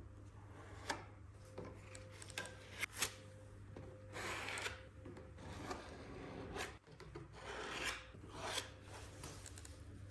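Hand work on a Land Rover Defender 110 dashboard: irregular rubbing and scraping strokes, the longest about four seconds in and near eight seconds, with a few sharp clicks, over a faint steady low hum.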